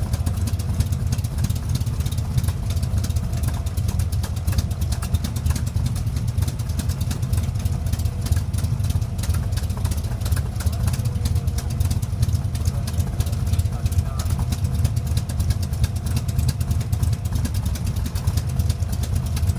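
Chevy V8 engine idling steadily with a loud, deep exhaust note.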